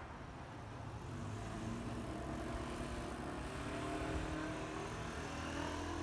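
A motor vehicle coming along the street, its engine note rising slightly as it nears, over a steady low rumble of traffic.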